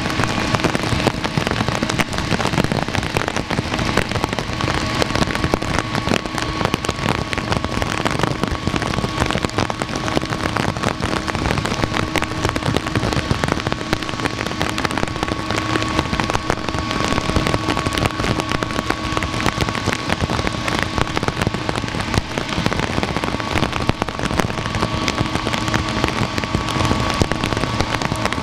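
Heavy rain falling, a dense, steady patter with many close drop hits. Underneath, a faint steady whine of jet engines at taxi idle.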